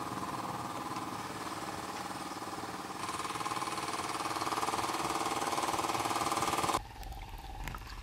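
A small engine running steadily, growing louder about three seconds in. Near seven seconds it cuts off abruptly and a quieter low rumble follows.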